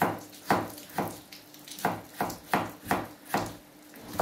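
Kitchen knife dicing potatoes on a plastic cutting board: a steady run of sharp knocks, about two to three a second, with a brief pause near the end.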